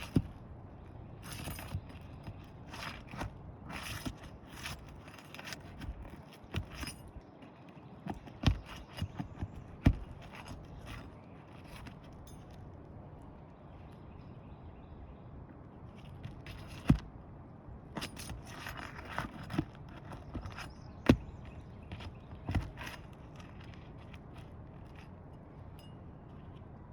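Hand tools scraping and prying at asphalt roof shingles, with scattered sharp knocks and taps, a few much louder than the rest.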